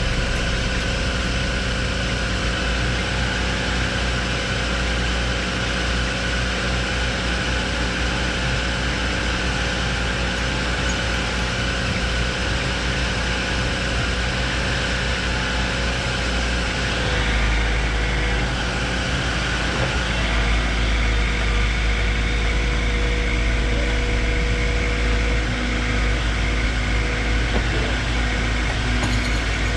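Excavator diesel engines running under hydraulic load as a mired excavator is worked out of wet clay. The steady engine drone grows louder and heavier about 17 seconds in, with new steady tones joining at about 20 seconds.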